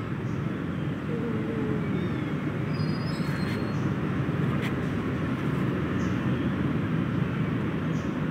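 Steady low rumbling background noise that holds at an even level throughout, with no clear separate events.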